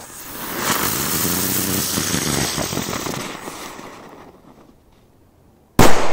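A ground-spinner firecracker (Golden Dragon 'Blitz Troyanda') spinning on the ground with a loud hiss for about four seconds as its fuse charge burns. After a short pause it ends in a single sharp bang, near the end.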